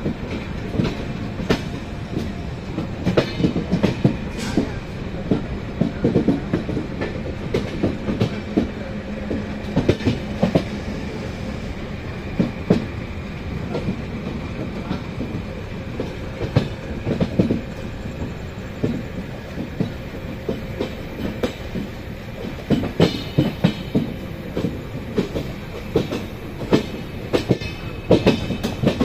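Train running along the tracks, its wheels clattering irregularly over rail joints and points above a steady rumble, heard from on board.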